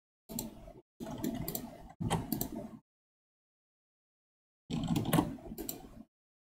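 Computer keyboard and mouse clicks picked up by a desk microphone, in four short bursts of a few clicks each that cut in and out abruptly.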